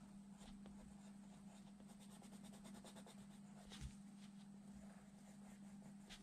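Faint scratching of a coloured pencil on drawing paper: a quick run of short strokes about two seconds in, then a soft tap. A steady low hum runs under it.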